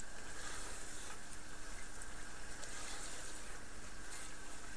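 Chicken and bitter gourd sizzling steadily as they fry in oil in a pan, stirred with a spoon.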